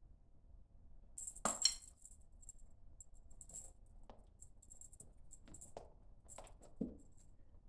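Small bells jingling in short, repeated bursts as a Norwegian Forest kitten leaps about. Soft thumps come from her landings, the loudest about a second and a half in and a couple more near the end.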